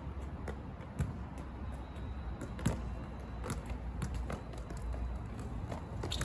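A football being touched and kicked on stone paving: irregular light taps and thuds of foot on ball and ball on the slabs, one firmer strike a little before the halfway point, over a steady low rumble.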